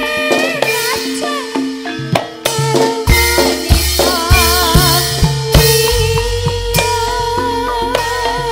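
Javanese gamelan music for a tayub dance: kendang hand-drum strokes over ringing bronze metallophones, with a female singer's wavering vocal line in the middle. Deep gong strokes come in about three seconds in and again about six seconds in.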